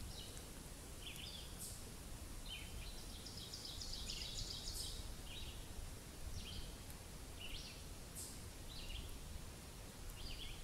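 Songbirds singing in leafy woodland: short chirping phrases and a run of quickly repeated notes, some a few seconds apart, over a low steady background rumble.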